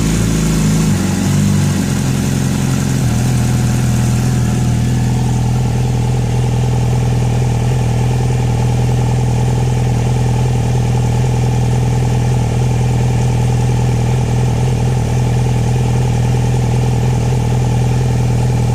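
2009 Yamaha R6's inline-four engine dropping from a raised speed over the first few seconds, then settling into a steady idle.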